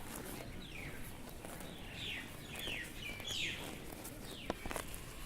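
Cows grazing, with soft crunches of grass being torn and chewed and a sharp click about four and a half seconds in. A bird gives a quick run of short, falling chirps in the first half.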